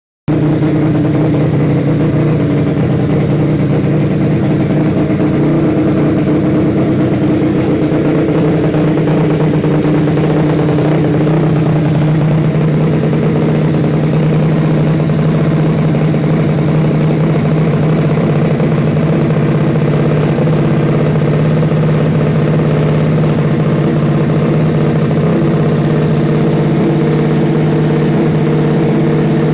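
Suzuki Nex scooter's single-cylinder four-stroke engine, tuned up to 130cc, running steadily at an even speed.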